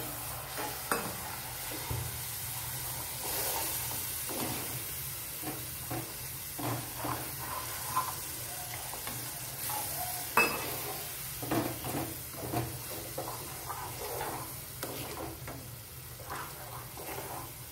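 A spatula stirs and scrapes a thick tomato-onion masala in a nonstick frying pan, with the spiced paste sizzling in the oil as it is sautéed. Irregular scrapes and light clicks of the spatula on the pan sound over a steady sizzle.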